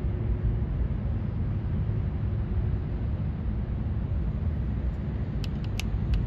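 Steady low rumble of the passing Great Lakes freighter James R. Barker, mixed with wind buffeting the microphone. A few short high clicks come near the end.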